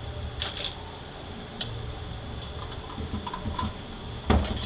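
Scattered light metallic clicks and ticks as 4R75W transmission parts are handled, with one heavier knock near the end, over a steady low hum.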